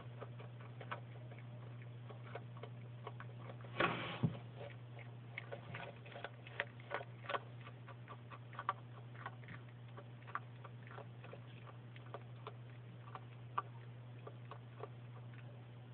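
Bearded dragon chewing carrot: irregular crisp clicks and crunches, with a louder cluster about four seconds in. A steady low hum runs underneath.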